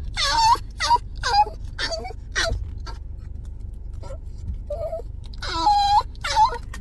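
A puppy letting out strange, creature-like wailing cries: a quick run of about five short calls that slide down in pitch, then after a pause two longer wails near the end.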